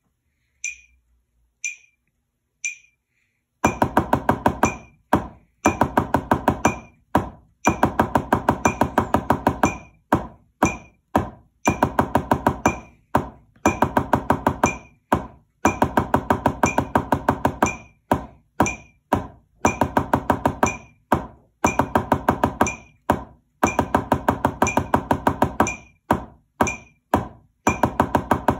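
Drumsticks on a practice pad: a few evenly spaced clicks for the first three and a half seconds, then the 'sixes' drum exercise at 60 beats per minute, fast runs of stick strokes in short phrases with brief breaks between them.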